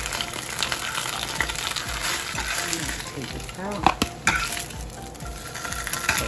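Buffalo-sauced plant-based turkey slices sizzling in a nonstick skillet, with a metal fork scraping and clicking against the pan as the slices are lifted out; a couple of sharp clicks about four seconds in.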